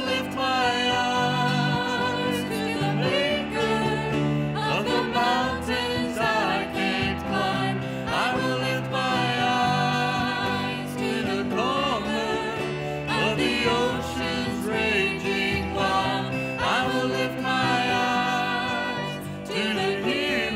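A church worship team singing a song with instrumental accompaniment.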